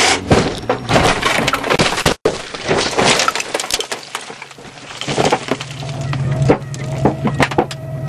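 Toyota Camry sedan rolling over, heard from inside the cabin: a dense run of crunching impacts with sheet metal and glass breaking, easing off about three seconds in. Scattered knocks follow over a steady low hum.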